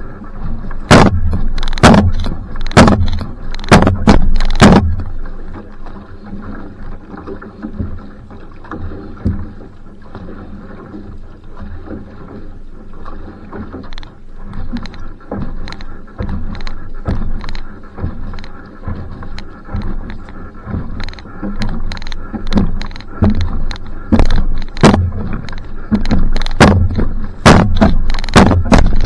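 Outrigger canoe (va'a) being paddled: each stroke gives a splash and a knock, about one a second. The strokes are loud for the first five seconds, softer through the middle, and loud again and a little quicker near the end.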